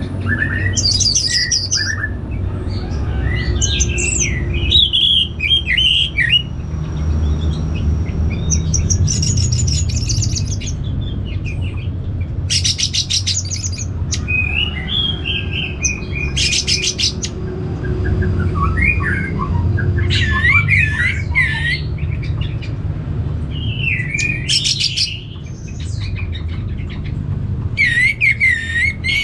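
Orange-headed thrush singing a run of short varied phrases: whistled slurs mixed with rapid buzzy rattles, with brief gaps between phrases. A steady low rumble runs underneath.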